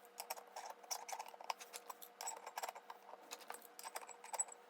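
Hand tools working metal on a motorcycle engine's timing case: light, irregular metallic clicks and clinks, several a second, over a faint steady hum.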